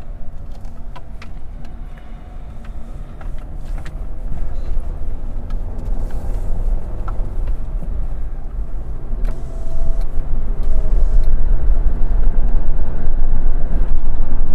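Car driving: a steady low engine and road rumble that grows louder about four seconds in and again about ten seconds in.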